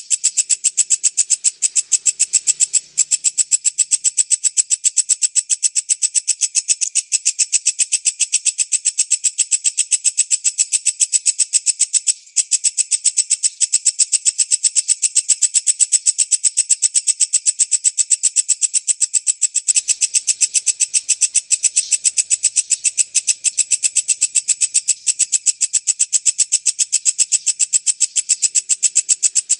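Lovebird singing a long, rapid chattering trill of high notes repeated many times a second, broken only by short pauses about 3 and 12 seconds in.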